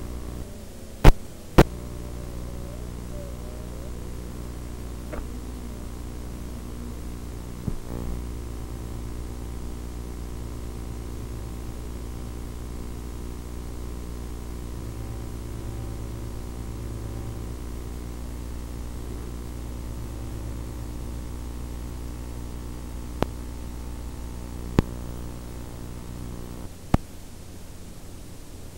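Steady electrical hum and hiss from the FPV video link's audio channel, with a few sharp clicks; the two loudest come about a second in. The hum cuts out near the end, leaving only hiss.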